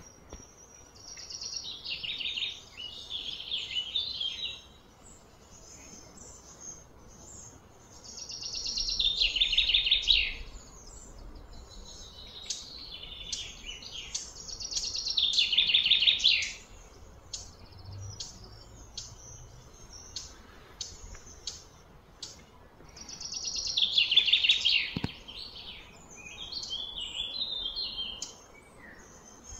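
Songbird singing: a fast trilled phrase about two seconds long that slides down in pitch, repeated about every five to six seconds, with short chirps in between.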